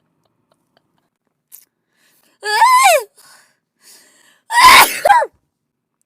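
A woman sneezing twice, about two seconds apart, each after a short faint inhale. The first sneeze is voiced, with a high pitch that falls away. The second is a sharper, noisier burst.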